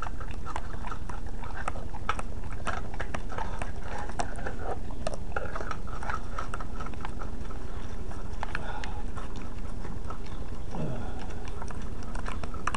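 A dog licking and chewing cat food out of a small tin can, with many irregular wet clicks and taps of tongue and teeth against the can, over a steady low rumble.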